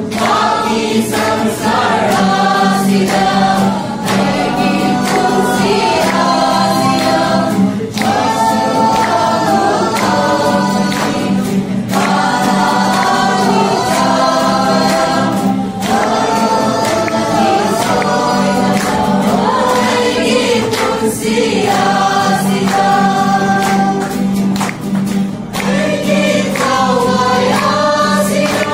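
Small group of young singers, mostly women, singing a Christmas song together, accompanied by a strummed acoustic guitar.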